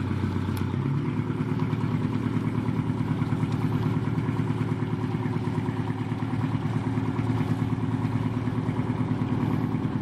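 Motor launch's inboard engine running at low speed as the boat manoeuvres slowly in the harbour: a steady low throb.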